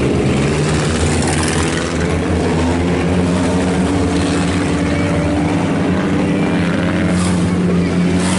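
Several four-cylinder sport compact race cars running together in a pack, their engine notes slowly rising in pitch.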